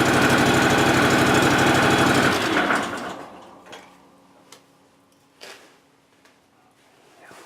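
John Deere X585 lawn tractor engine running steadily, then switched off a little over two seconds in and dying away. A few faint clicks or knocks follow.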